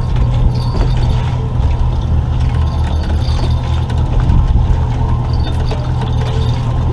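Small outboard motor running steadily at trolling speed, a continuous low drone. A few faint light ticks come from handling the lure and bottle.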